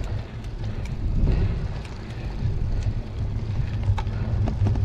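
Wind rushing over the microphone of a camera riding along on a bicycle, with road noise: a steady, uneven low rumble and a few faint ticks.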